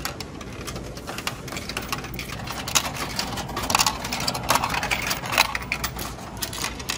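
Coins pushed by hand into a self-checkout machine's coin slot, clinking as they drop through the coin mechanism: a run of irregular small metallic clicks, thickest in the middle.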